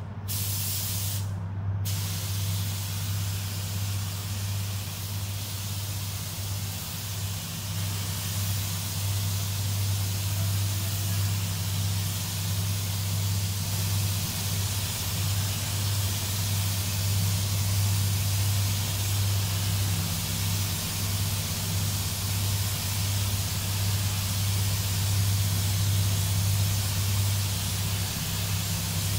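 Air-fed paint spray gun hissing steadily as it lays on 2K clearcoat, with one short break about a second and a half in. Under it runs the spray booth's steady low fan hum.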